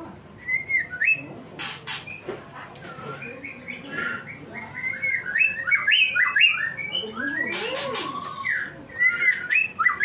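White-rumped shama (murai batu Medan) singing in full voice ('gacor'): a rapid, varied run of short whistled notes and chirps, with a few short clicks among them.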